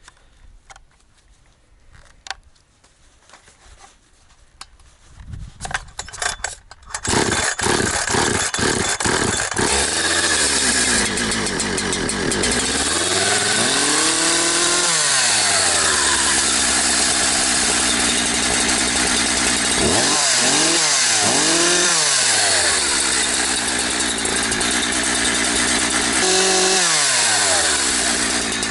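Holzfforma G372 XP two-stroke chainsaw (a Husqvarna 372 XP clone) being started. It gives a few sputters, catches about seven seconds in and then runs loud at high revs. Its engine note sags and climbs back several times, around the middle and again near the end.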